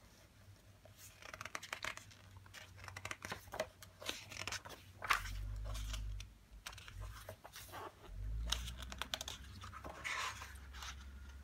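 Glossy pages of a hardback book being turned by hand, rustling and flapping in several bursts, with a couple of dull low bumps in between as the book is handled.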